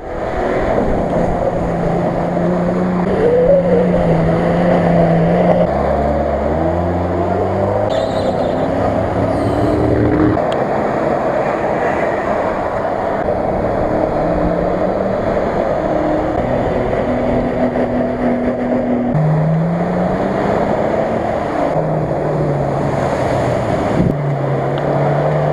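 Off-road 4x4 engines, a snorkelled Mitsubishi L200 and a Mitsubishi Pajero Sport, revving hard as they plough through deep muddy water, over the rush and splash of the water. The engine note climbs and falls with the throttle, and changes abruptly twice as one clip gives way to the next.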